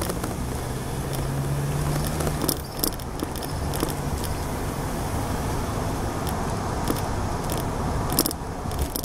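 Car engine and road noise heard from inside the cabin while driving, with a steady low engine hum for the first couple of seconds and scattered short clicks and rattles throughout.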